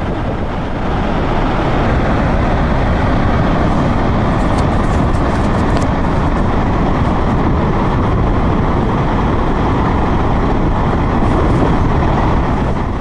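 Muddy floodwater rushing through open dam gates in a steady torrent, a little louder from about a second in.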